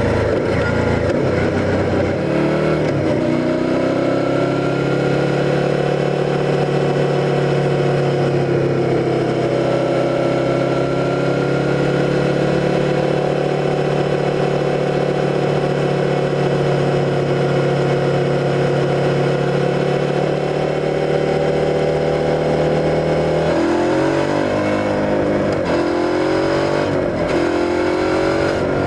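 Suzuki SV650's 645 cc V-twin engine under way: it pulls up through a gear change in the first few seconds, then holds steady revs for about twenty seconds. Near the end the revs rise and drop sharply several times through quick gear changes.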